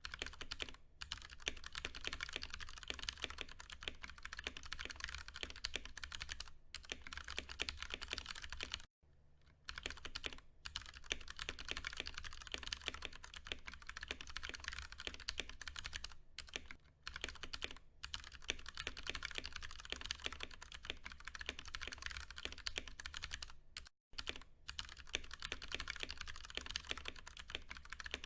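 Continuous fast typing on a Ducky One 2 Mini mechanical keyboard with Cherry MX Brown switches: a dense run of key clicks and clacks, with brief pauses a few times.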